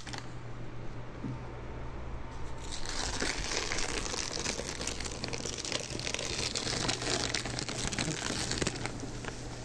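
Thin plastic sheet crinkling and crackling as it is peeled back off the combs of a stingless-bee hive box; the crinkling grows dense about three seconds in.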